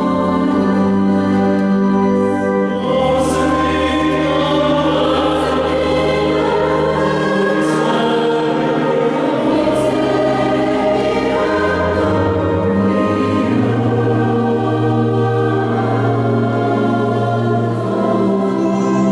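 Mixed church choir singing sustained chords with organ accompaniment, the organ holding long low bass notes beneath the voices.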